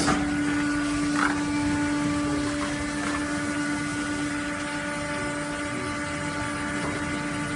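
Automatic liquid filling line for jerrycans running: a steady motor hum with a constant whine on top, and a brief scrape about a second in.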